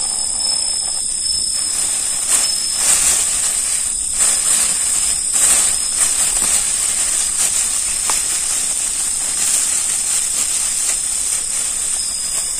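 A steady high hiss, with a plastic bag crackling now and then as it is twisted and handled around a captured wasp nest.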